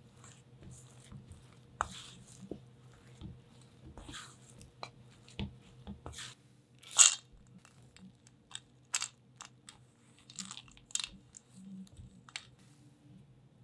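A spatula folding and pressing thick, heavy cookie dough in a stainless steel mixing bowl: irregular soft scrapes and squishes, with a louder scrape against the bowl about seven seconds in. A faint steady low hum runs underneath.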